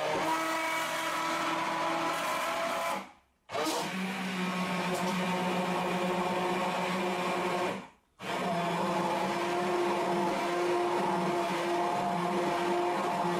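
Electric hand blender running steadily while blending a brown liquid in a tall plastic beaker. Its motor winds down and cuts out for a moment twice, about three seconds in and about eight seconds in, then starts again.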